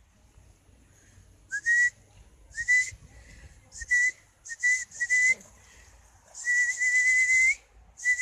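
A person whistling a string of short notes on one pitch, each sliding up slightly at the start, with a breathy hiss on every note; one held whistle of about a second comes near the end.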